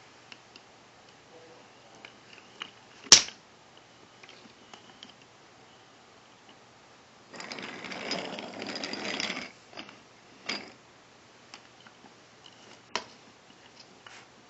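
Wooden toy train set being handled: scattered light clicks of wooden pieces, a sharp wooden knock about three seconds in and another near the end. About halfway through comes a rattle lasting about two seconds as a small wooden engine and wagon are pushed along the wooden track.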